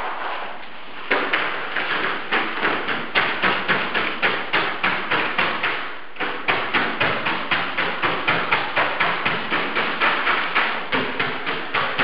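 Fast, regular strikes of a paint-loaded implement being slapped against a wall, about three a second, starting about a second in, pausing briefly near the middle and cutting off suddenly at the end.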